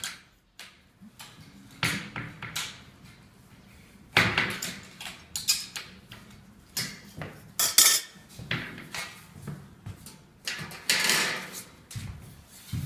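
Sheet-metal flashing being handled and worked by hand: irregular metallic knocks and clanks, with longer scraping stretches about four and eleven seconds in.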